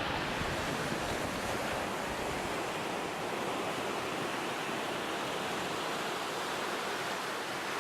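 Steady rushing noise, even and unbroken, like surf or wind.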